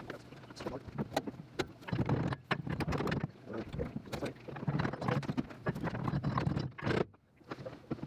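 Irregular clicks, clinks and knocks of metal parts and hand tools as a steering column is fitted and held in place under a Dodge Dart's dashboard, with a short quiet gap near the end.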